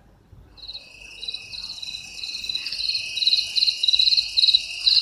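Google Assistant's bedtime-routine nature sounds played from a phone's speaker: a chorus of chirping crickets that fades in and grows steadily louder, with rapid repeating chirps.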